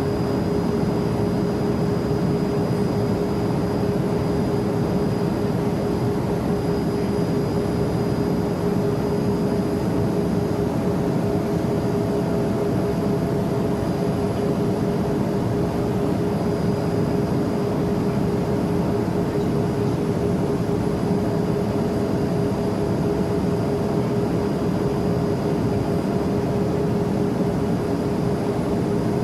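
Cabin noise inside a Learjet: the jet engines and airflow make a steady, even drone with a constant humming tone running through it.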